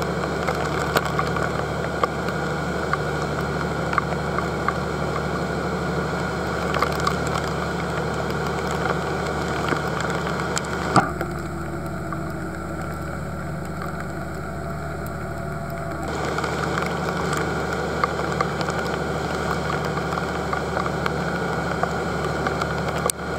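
Boat engine running steadily under way, an even low drone, with scattered sharp ticks over it. The sound turns a little quieter for about five seconds midway.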